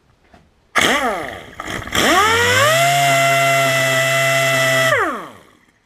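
Power sander with 320-grit paper: a short blip that dies away, then the motor spins up, runs steadily at speed for a few seconds and winds down.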